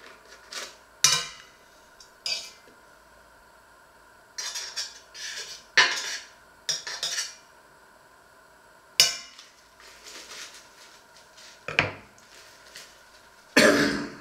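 Metal utensil knocking and scraping against an empty stainless steel stockpot as butter is scraped into it: a series of separate sharp clinks with short scraping runs, and a louder, longer clatter near the end.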